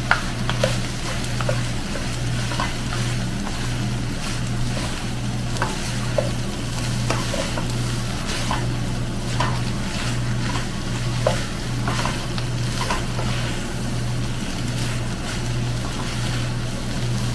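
Yakisoba noodles and vegetables sizzling in a nonstick wok while being tossed and stirred with two wooden spatulas. Scattered light clacks of the spatulas against the pan come over a steady low hum.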